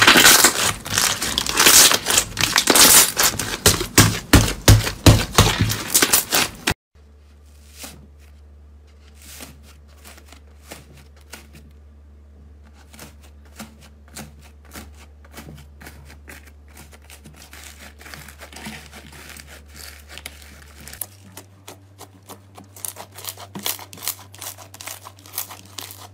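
Hands pressing and squeezing fluffy slime, with loud, dense crackling and popping. About seven seconds in it cuts to softer, scattered clicks and pops of fingers pressing foamy slime over a faint low hum. The clicks grow louder again near the end.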